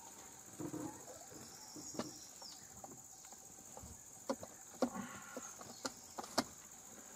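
Steady high-pitched insect drone, with a few short falling whistles and a scattering of sharp clicks and knocks, most of them in the second half.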